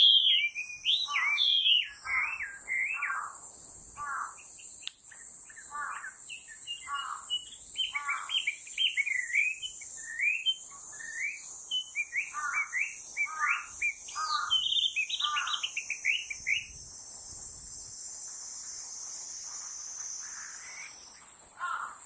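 Chinese hwamei singing a long run of quick, varied whistled phrases that stops about three-quarters of the way through. A steady high-pitched drone lies underneath.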